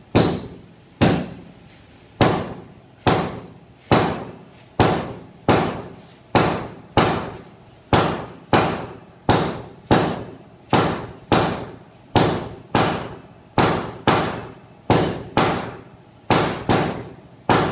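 Two sledgehammers striking hot steel on an anvil in turn: a steady run of sharp blows with a short ring after each, about one a second at first and quickening to closer to two a second.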